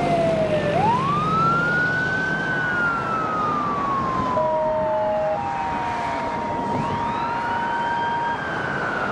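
A Hahn fire engine's siren wailing as the engine responds. The tone rises quickly, then falls slowly, twice, with two short steady tones sounding partway through.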